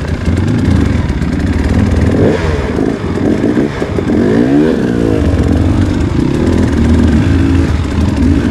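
Enduro dirt bike engine running under load on a trail, its pitch rising and falling repeatedly as it is revved between about two and five seconds in.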